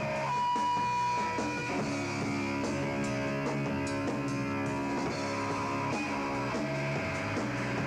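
Live rock band playing an instrumental passage: electric guitar holding sustained notes over the band.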